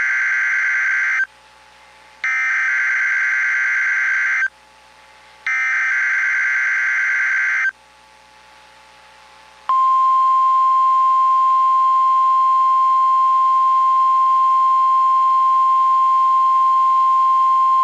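NOAA Weather Radio emergency alert signals: three identical Specific Area Message Encoding (SAME) header bursts, each a harsh two-second warble of digital data about a second apart, then after a short pause the steady 1050 Hz warning alarm tone begins about ten seconds in and holds. This is the alarm sequence of the weekly test of the weather radio warning system.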